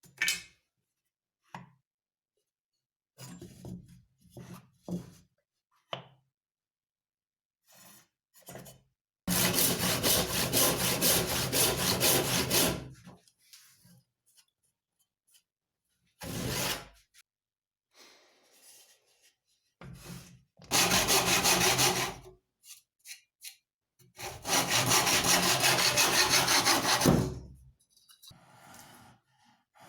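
A saw cutting through wood in three bouts of rapid rasping strokes, the middle one short. Short knocks and clicks come between the bouts as the work is handled.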